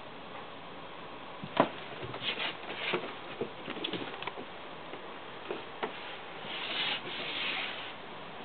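Scottish Fold kitten scuffling on a wooden floor as it plays with a yarn pompom: a sharp knock about one and a half seconds in, then a run of light taps and scrapes, and a soft rubbing sound later on.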